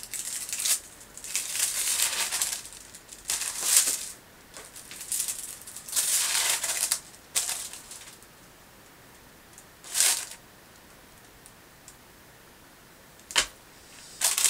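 Plastic protective film being peeled back off the glue-coated canvas of a diamond painting, crinkling and rustling in several bursts. After a quieter stretch there is one more burst and a short sharp click near the end.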